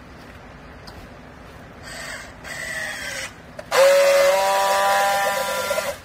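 Handheld battery-powered strapping tool working on a plastic strap around a bale. Its motor whirs for about a second and a half, slowing in pitch as it pulls the strap tight. After a short pause comes a louder, steady whine for about two seconds as it seals the strap, and that stops abruptly near the end.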